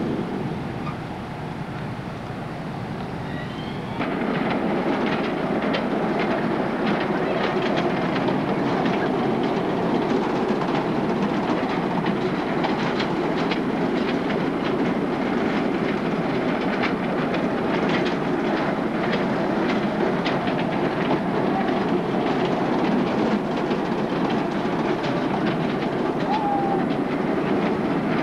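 Kiddie carnival train ride running around its track: a steady rolling noise with many fast, light clicks from the wheels and cars. It comes in abruptly about four seconds in, after a quieter stretch of steady outdoor noise.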